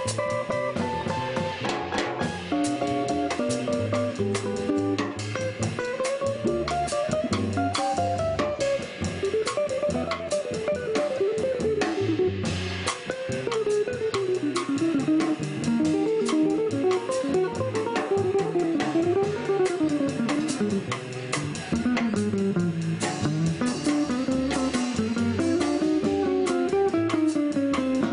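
Live jazz trio of archtop guitar, upright double bass and drum kit playing: the guitar carries a single melody line that winds up and down, over plucked bass notes and light drum and cymbal strokes.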